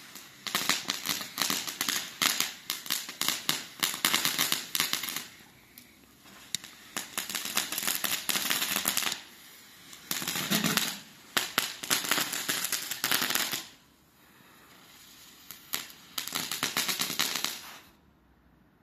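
Weco Creepy Crackles, a small category F1 crackling firework, going off in dense rapid crackling. It comes in about five bursts separated by short lulls and stops shortly before the end.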